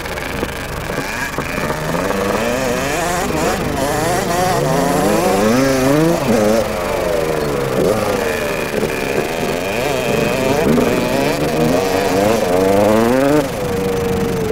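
Two small two-stroke motocross bikes, one a Kawasaki KX 60, revving up and down again and again as they ride the track. Their rising and falling pitches cross one another, and the revs ease a little near the end.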